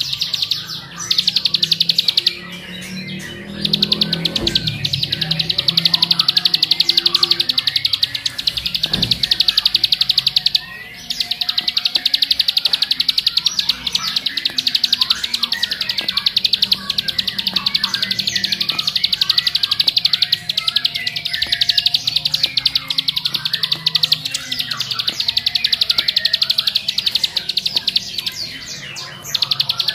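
Ciblek (a small prinia) singing a long, very fast, continuous buzzing trill in the 'ngebren' style, broken only by brief pauses about a second in, near two and a half seconds, around eleven seconds and just before the end.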